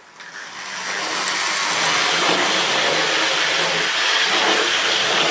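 OO gauge model locomotives running round the track under power: a steady electric motor whir with wheel-on-rail noise, building up over about the first second as the controller is turned up.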